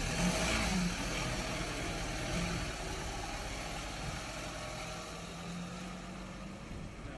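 Ambulance van's engine running as it pulls slowly away, a steady low hum that fades gradually.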